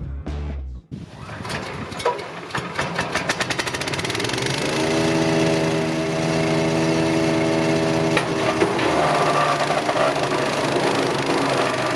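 Background music cuts off about a second in, and an engine takes over, its beat quickening as it speeds up. It runs at a steady pitch for a few seconds, then its note turns rougher about eight seconds in.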